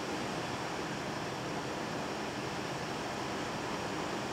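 Steady rushing noise on the flight deck of an Airbus A340-300 on final approach: the airflow and engine noise heard inside the cockpit, even and unchanging.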